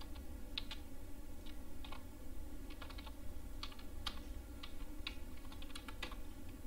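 Typing on a computer keyboard: irregular, quick key clicks, over a low steady hum.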